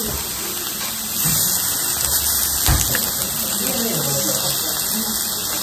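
Venison slices and vegetables sizzling on a hot griddle: a steady hiss, with a short low thud about halfway through.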